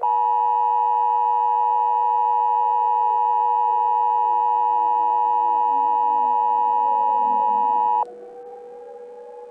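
Emergency Alert System attention signal: two steady high tones sounding together for about eight seconds, then cutting off suddenly. Underneath, a steady hum and slow falling and rising pitch sweeps carry on more quietly after the tone stops.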